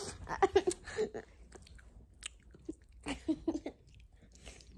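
Someone chewing and biting into a MrBeast chocolate bar close to the microphone, with small wet clicks of chewing, broken by a few short vocal noises.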